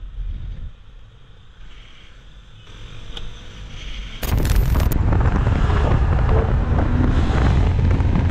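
Low street and motorcycle rumble heard from a rider's camera. About four seconds in it switches abruptly to loud wind buffeting on the microphone over a low rumble, from a motorcycle moving at speed.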